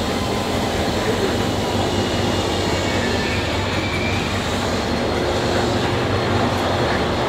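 Te Huia passenger train standing at the platform, a steady low mechanical hum from the stationary train.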